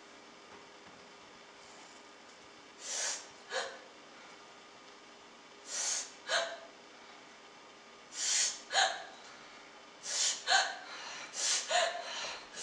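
A person taking sharp, gasping breaths in pairs, every two to three seconds, coming faster near the end.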